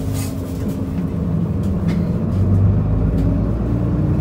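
Isuzu Erga city bus heard from inside the passenger cabin while driving: a steady low engine and road drone, with a few light clicks and rattles.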